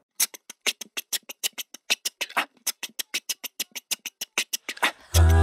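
Beatboxer's mouth percussion: a fast, even run of sharp, hi-hat-like clicks, about seven a second. Near the end the a cappella group comes in singing a held chord over a deep vocal bass note.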